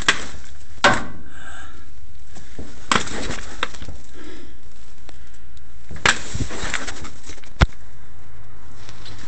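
Handheld camera handling noise: a few short knocks and rubs, about four in all with the sharpest near the end, over a steady low hum.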